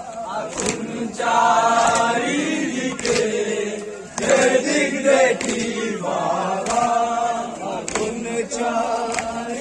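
A crowd of men chanting a Shia mourning lament (noha) together. Their chant is cut through by sharp slaps of open hands on chests about once a second (matam).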